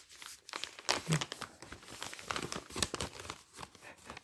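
Plastic packaging of a cross-stitch kit crinkling and rustling as it is handled and pulled from its bag, with irregular small crackles throughout.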